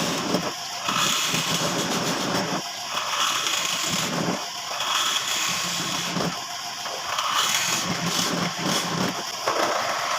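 Electric power tool running and cutting into a wooden door frame, its sound changing every second or two as the bit loads and eases.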